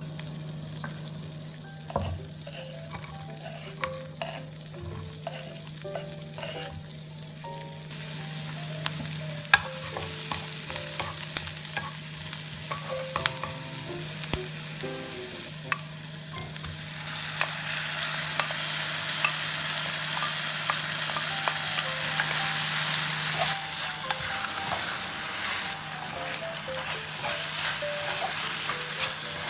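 Marinated chicken for dakgalbi sizzling as it fries in a pan, stirred with a utensil that clicks against the pan now and then. The sizzle grows louder about eight seconds in and is loudest for a stretch toward the end.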